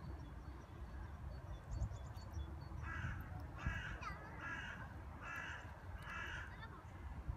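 A crow cawing five times in an even series, about one call every 0.8 s, starting about three seconds in, with a steady low rumble underneath.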